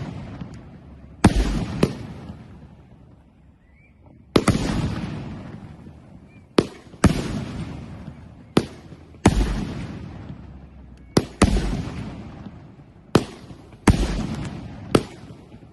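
A 16-shot, 500-gram consumer firework cake firing shot after shot: sharp bangs, some in quick pairs, each trailing off in a long fading rumble, with a lull of a couple of seconds a few seconds in.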